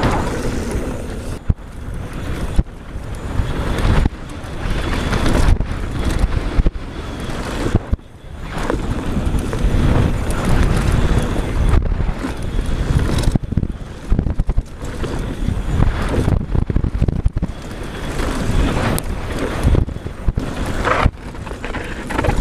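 Wind buffeting the microphone and knobby tyres rolling fast over a dirt trail during a mountain bike descent. Frequent short knocks and rattles come from the bike going over bumps.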